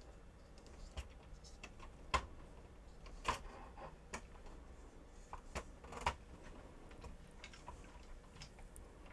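Scattered light clicks and taps at an irregular pace as hands handle wires and 3D-printed plastic parts, threading the wiring through the arm's channel.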